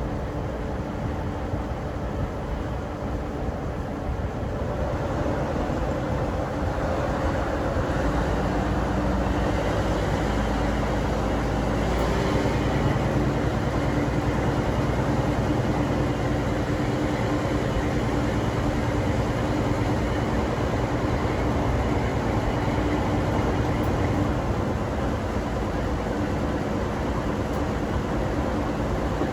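Diesel locomotive running with a steady engine note, growing louder over the first several seconds and then holding.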